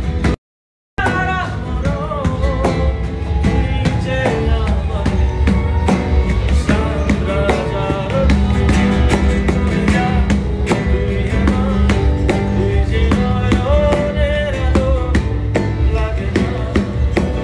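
Nylon-string acoustic guitar strummed in a fast, percussive rhythm, with a voice singing along. The sound cuts out completely for about half a second near the start.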